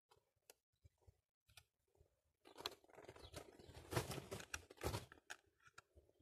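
Faint handling noise: scattered soft clicks, then rough rustling and crinkling with a few sharper clicks in the middle, as things are moved about by hand.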